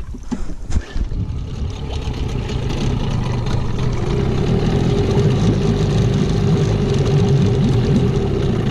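New Tohatsu 9.8 outboard motor running steadily in its break-in, warming up shortly after its first start. The engine note grows a little louder over the first few seconds, then holds even.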